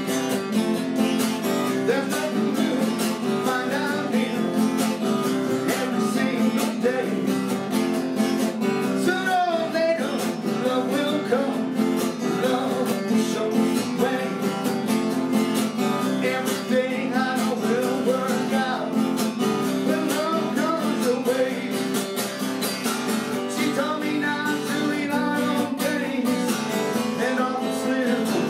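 Background music of a strummed acoustic guitar, played in a steady rhythm.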